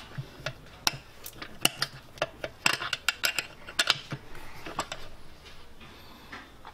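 Irregular sharp metal clicks and clinks as an industrial sewing machine's knee lifter linkage is fitted by hand under the table, its steel parts knocking against the bracket.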